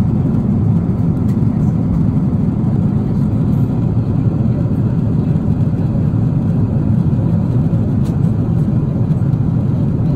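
Steady cabin drone of a Boeing 777-300ER airliner in cruise, the low, even rush of engine and airflow noise heard from a window seat.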